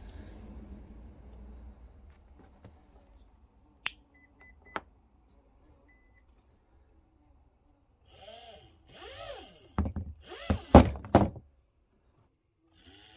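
Brushed Turbex RC plane motor on a Hobbywing QuicRun 880 ESC, run on a 3S LiPo: a click, then short electronic beeps, three quick and one more. Then the motor is blipped: two brief whirs rising and falling in pitch, a few louder, harsher bursts, and near the end it starts spinning up again with a rising whine.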